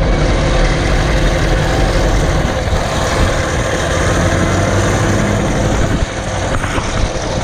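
Small single-cylinder engine of a Coleman CT200U mini bike running steadily up close, with a slight drop in level about six seconds in.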